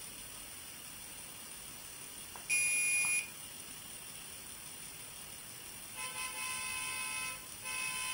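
Uhlenbrock sound decoder in an H0 model of a Dodge Weapon-based railcar, played through the model's small speaker: one short high beep about two and a half seconds in, then two horn blasts of about a second and a half each near the end, with a brief gap between them.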